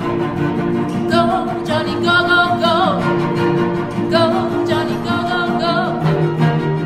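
Music: a voice singing with vibrato in short phrases over held low accompanying notes.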